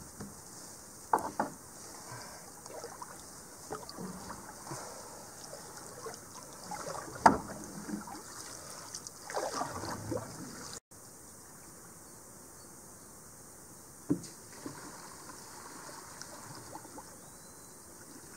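Canoe paddle strokes in calm water: swishing and splashing as the blade is worked, with a few sharp knocks, the loudest about seven seconds in. The sound drops out for an instant about eleven seconds in, and the water noise after that is quieter.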